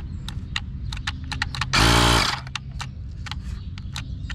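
Cordless 20V tire inflator's compressor runs in one short burst of about half a second, about two seconds in, then cuts out as the tire holds at its 35 PSI setting. Faint clicks run through the rest.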